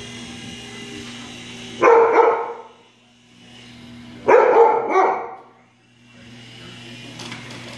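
Siberian husky puppy barking twice, each bark short and loud, about two and a half seconds apart. These are wary alarm barks at a toy helicopter that has frightened it.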